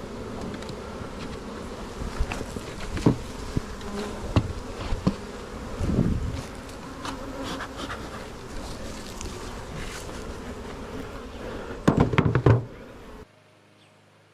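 Honeybees buzzing steadily around an opened hive, with scattered knocks and bumps and a loud cluster of them near the end; the sound cuts off abruptly to near silence shortly before the end.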